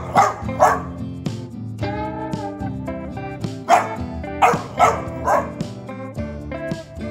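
Eleven-week-old golden retriever puppy barking in short, sharp yaps: two at the start, then four more about four to five and a half seconds in. Background music plays throughout.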